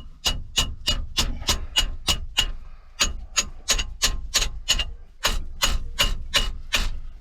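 Rapid metal-on-metal hammer blows, about three a second with a short ringing after each, knocking on the rust-seized reverse gear lock of the gear lever to free it.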